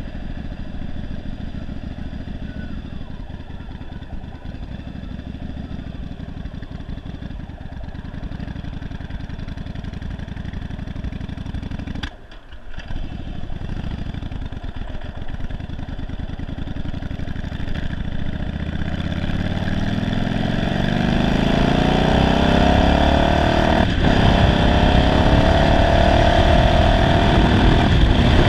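1991 Yamaha Virago 750's air-cooled V-twin, fitted with a single-carburettor conversion that the owner says runs poorly, ticking over low at slow speed with a brief drop about twelve seconds in. From about seventeen seconds it accelerates with rising pitch, then runs steadily at speed with wind noise.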